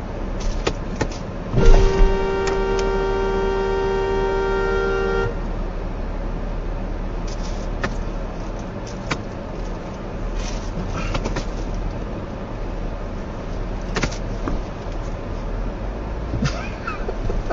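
A car horn sounds one steady held blast of about three and a half seconds, starting about a second and a half in, over steady road noise from a moving car. A few short clicks and knocks are scattered through the rest.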